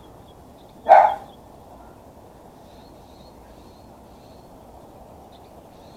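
A small Chihuahua–Manchester terrier mix dog gives a single short bark about a second in.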